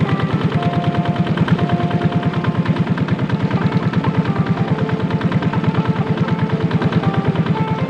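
A small engine running steadily, with a rapid, even pulsing beat that does not change.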